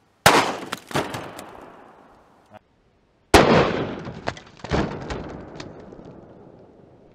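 Two 9mm pistol shots from a Glock 43, about three seconds apart, each a sharp crack followed by a long echo dying away.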